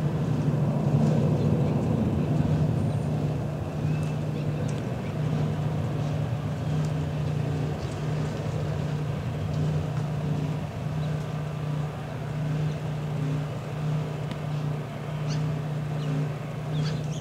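Two A-10 Thunderbolt II jets' twin turbofan engines drone overhead as the pair flies away: a steady, slightly wavering low hum that slowly fades.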